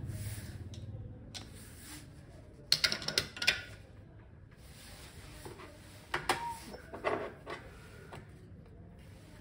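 Espresso portafilter locked into the Quickmill Carola's group head, a quick cluster of metal clanks and scrapes about three seconds in. A few seconds later a cup is set on the drip tray under the spouts, with a few lighter clinks and knocks.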